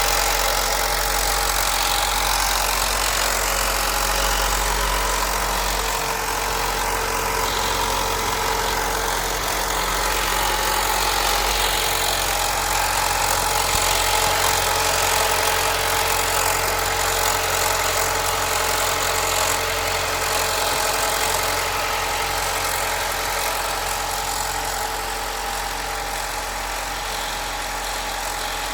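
Alfa Romeo Giulia 2.0 Veloce's turbocharged four-cylinder engine idling steadily after a cold start, with a rattle that the owner suspects comes from the turbo's diverter valve.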